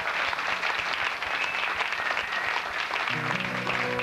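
Audience applauding. About three seconds in, music starts under the applause with a steady held chord.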